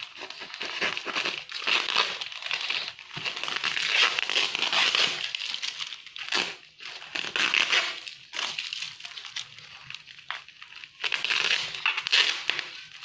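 Plastic parcel wrapping and packing tape crinkling and crackling in irregular bursts as hands tear and peel it open, quieter for a couple of seconds in the second half.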